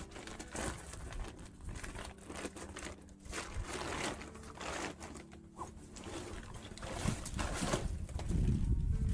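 Homemade tarp rain cover rustling and crinkling in irregular bursts as it is handled and pulled off a backpack.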